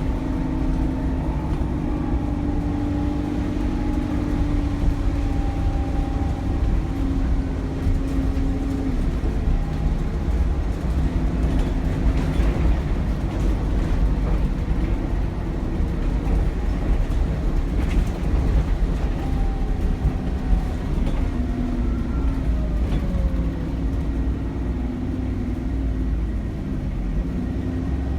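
Cummins ISBe diesel engine and turbocharger of an Alexander Dennis Enviro400 double-decker bus under way, heard from on board. A heavy road rumble runs beneath engine drones that drift in pitch with engine speed, and a thin turbo whistle rises and falls about two-thirds through. There are a couple of sharp knocks from the bus body.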